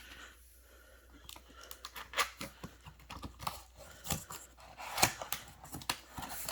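A large cardboard box being handled and opened, starting about a second in: irregular crackling, tearing and knocks of cardboard and packing.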